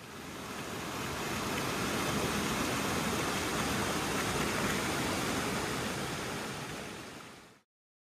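Shallow mountain creek rushing and splashing over boulders: a steady wash of water noise that swells in at the start and fades out near the end.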